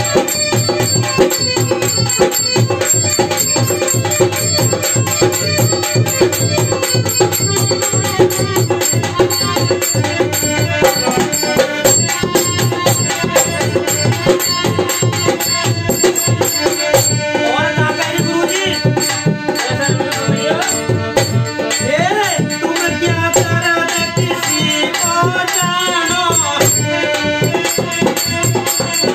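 Dholak drum played by hand in a fast, steady rhythm under a harmonium holding chords and melody: an instrumental passage between sung verses of a Hindi folk bhajan. In the second half a wavering, gliding melody line rises and falls over them.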